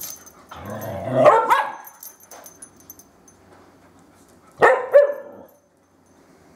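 Dogs barking in play: a drawn-out call that rises in pitch about a second in, then two short sharp barks in quick succession near the fifth second.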